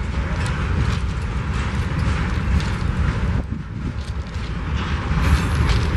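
Several BNSF diesel freight locomotives running as they approach at low speed: a steady low engine rumble.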